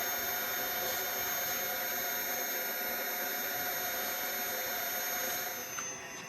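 Electric air pump running with a steady whir as it inflates an inflatable boat; it stops near the end.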